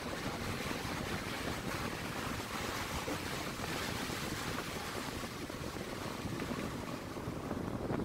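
Steady road noise from a vehicle driving on a dirt road, mixed with wind buffeting the microphone.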